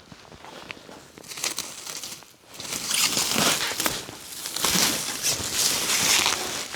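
Rustling and crinkling of packaging being handled: a few light clicks at first, then from about halfway in, loud irregular bursts of rustling noise with small clicks.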